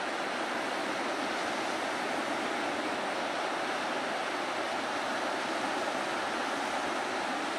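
Steady wash of small Baltic Sea waves breaking on a sandy beach, an even hiss of surf with no single wave standing out.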